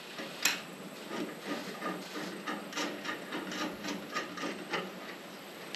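Hand work on a metal fuel cell's bolt flange: one sharp click, then a run of light, irregular clicks and small knocks from hardware and a tool being handled.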